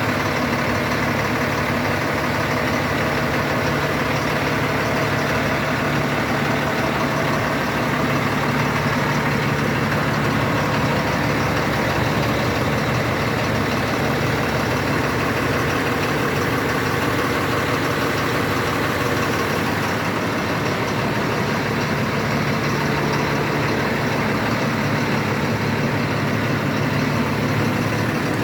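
Caterpillar 250 hp diesel engine running steadily at idle, with a constant low hum and no change in speed.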